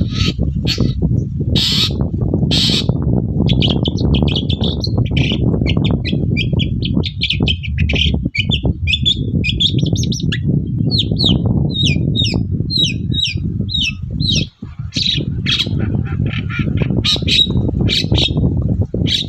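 Long-tailed shrike (cendet) singing a fast, varied song of short chirps and harsh notes, with a run of quick downward-sliding chirps in the middle, over a steady low rumble.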